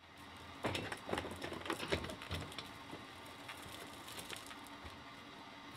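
A wheeled portable generator being pulled out over a door threshold onto concrete: clicks, knocks and rattles from its steel frame and wheels, together with footsteps. The knocks are sharpest in the first couple of seconds, then thin out to soft ticks.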